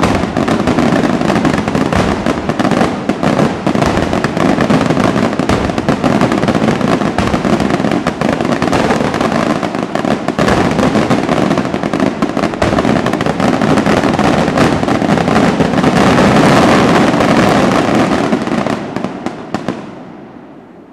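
Daytime aerial fireworks: a loud, dense, continuous barrage of many small firecracker bangs and crackles bursting overhead, dying away near the end.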